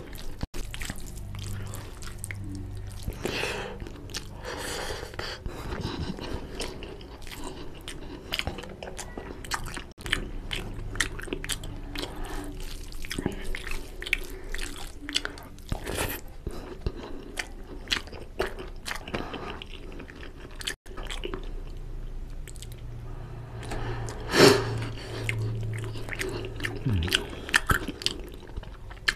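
Close-miked eating sounds: mouthfuls of rice and curry being chewed with wet smacking and clicks, alongside the squelch of fingers mixing rice into oily curry. One louder burst comes about 24 seconds in.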